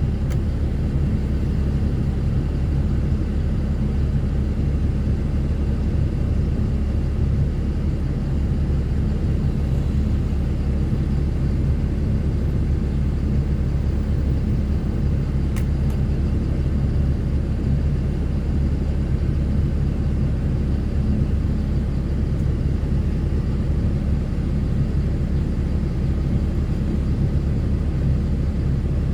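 Ford Cargo 2428 truck's diesel engine running steadily, a low, even rumble that neither rises nor falls.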